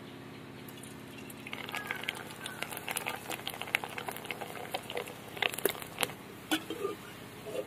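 A green pea rice papad frying in hot vegetable oil in an aluminium kadai: crackling and popping from about a second and a half in, as the papad puffs up, dying down near the end.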